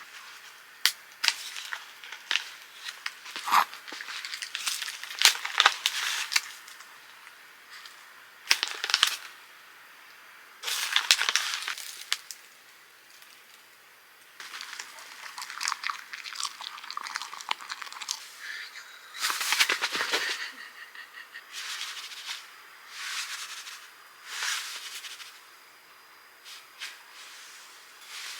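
Irregular handling noises: sharp clicks and taps mixed with short bursts of rustling and crinkling, starting and stopping many times.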